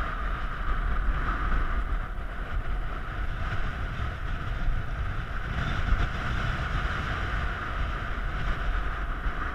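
Wind buffeting the microphone: a steady, rumbling noise with a constant hiss above it.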